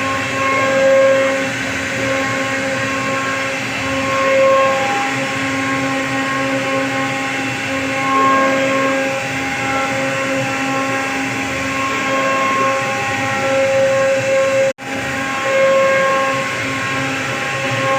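CNC router spindle running with a steady whine while carving wood, swelling and easing every few seconds as the cutter load changes. The sound cuts out for an instant about three seconds before the end.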